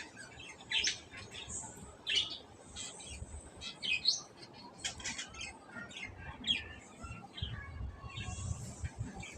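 Small birds chirping in the background: short, irregular chirps and quick squeaky notes, several a second.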